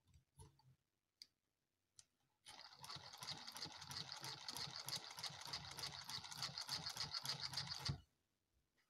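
3D-printed plastic steam engine turned over by hand at its flywheel, driving a small dynamo through a rubber-band belt: a whirring with a fast, even ticking for about five seconds that stops abruptly. A few light handling clicks come before it.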